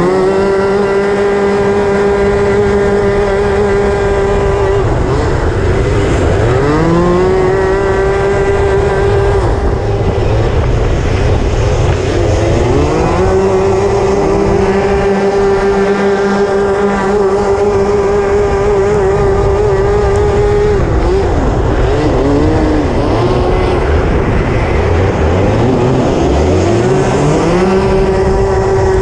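Racing kart engine heard onboard, held at high, nearly steady revs on the straights and dropping off briefly in the corners about five times, each time climbing back up as the throttle reopens, over a constant rush of noise.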